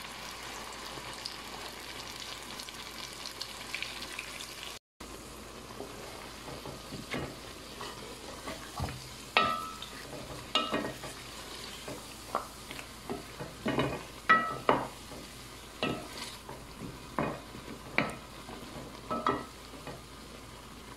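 Wooden spoon stirring meat and whole potatoes in a thick sauce in a metal cooking pot on the stove, over a steady sizzle. From about six seconds in, the spoon knocks against the pot again and again at an uneven pace, each knock ringing briefly.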